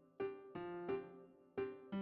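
Background music: a piano-like keyboard playing a gentle melody of single struck notes, each ringing and fading before the next.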